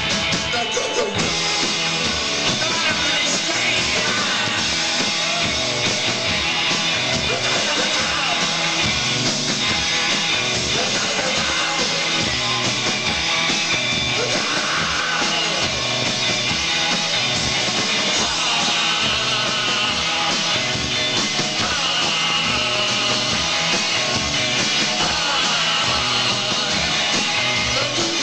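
Live rock band playing loudly: electric guitars, bass and drums with a steady driving beat, and a voice now and then over the music.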